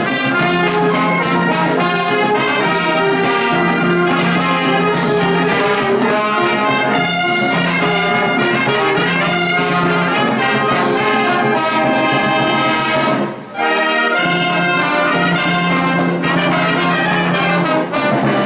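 Symphonic wind band playing a capitanía, a Moors and Christians festival march, with the brass to the fore. There is a brief break about thirteen seconds in before the full band comes back in.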